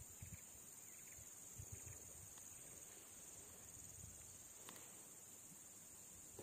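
Insects droning steadily at a high, even pitch, with a few soft low thumps in the first two seconds and a single sharp click about four and a half seconds in.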